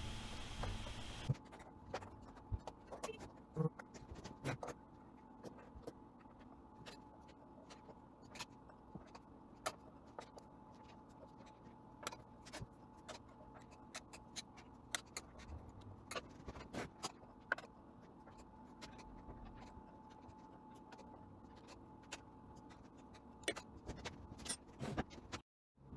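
Irregular light metallic clicks and ticks of an Allen wrench turning the screws that hold MDF waste-board strips to a CNC router bed, over a faint steady hum.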